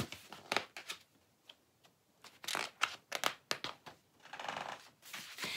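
Pages of a paperback picture book being handled and turned: a scatter of soft paper rustles and small clicks, with a short quiet gap early on and a brief soft swish near the end.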